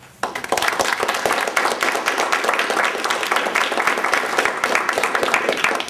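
Audience applauding: dense, fast clapping that starts suddenly and dies away near the end.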